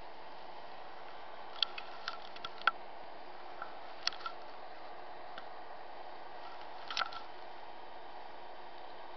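Handling noise from a handheld video camera: a scatter of small sharp clicks and knocks, some in quick pairs, over a steady low hum.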